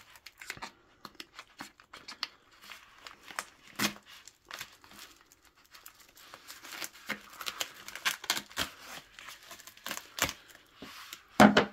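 Plastic bubble mailer being slit open with a folding knife and handled: crinkling and tearing of the plastic, with scattered small clicks and rustles. A couple of louder crackles come about four seconds in and near the end.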